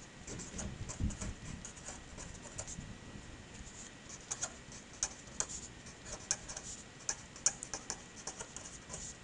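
Marker pen writing on paper: a run of short scratchy strokes as words are written out letter by letter, with a low thump about a second in.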